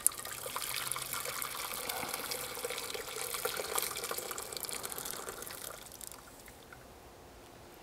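Hot water poured from an electric kettle into a cast-iron Dutch oven: a sharp click at the start, then a steady pour that tapers off and stops about six seconds in.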